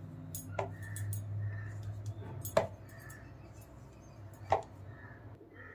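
Three light knocks, about two seconds apart, from balls of potato dough being set into a plastic bowl, with a faint steady low hum underneath.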